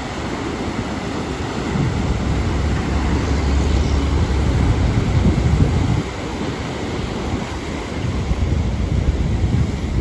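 Atlantic Ocean surf washing and breaking, with strong wind buffeting the microphone. A heavy low rumble builds from about two seconds in, drops off suddenly around six seconds, and swells again near the end.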